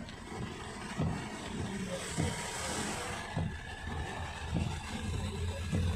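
Inside a car driving in heavy rain: steady road and engine noise under rain hitting the windscreen, with soft thumps about once every second and a bit from the windscreen wipers sweeping. A brief hiss swells around two seconds in.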